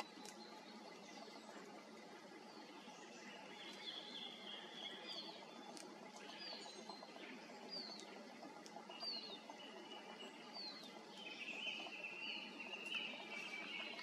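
Faint songbird calls: a short high note repeated roughly once a second, over a quiet background hiss.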